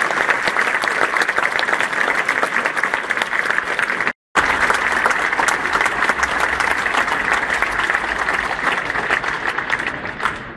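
Large crowd applauding, a dense even clatter of many hands clapping. The sound drops out briefly about four seconds in, then the clapping resumes and thins out near the end.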